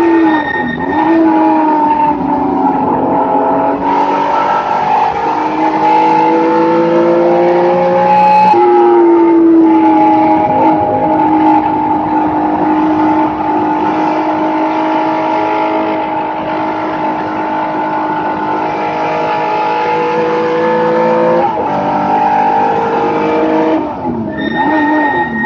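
Race car engine heard from inside the cockpit, pulling hard with its pitch climbing steadily, dropping sharply at upshifts about eight and twenty-one seconds in. Near the start and again near the end the revs dip and come back as the car slows for corners, with a thin high tyre squeal.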